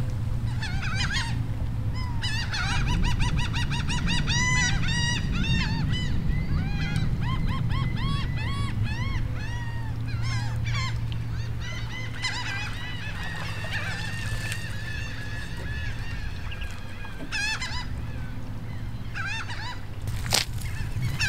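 Gulls calling over and over in quick, rising-and-falling series, over a steady low rumble of wind or water.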